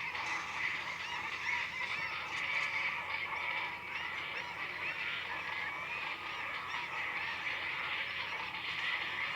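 A dense chorus of many animals calling at once: countless short, overlapping calls forming a steady din.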